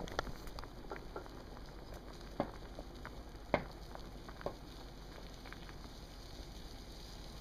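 Water boiling in a pot: a steady bubbling hiss with scattered sharp pops, the loudest about three and a half seconds in.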